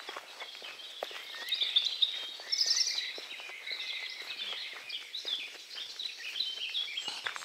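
Wild birds singing, a busy mix of chirps and trills that is loudest about two to three seconds in, over a walker's regular footsteps on a dirt track.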